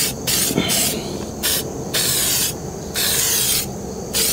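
Aerosol can of asphalt primer spraying in about seven hissing bursts, some brief and some about half a second long, as primer is sprayed onto metal roof edging.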